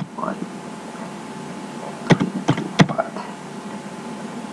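Computer keyboard keys pressed while typing digits: one keystroke at the start, then a quick run of about four keystrokes about two seconds in, over a steady background hiss.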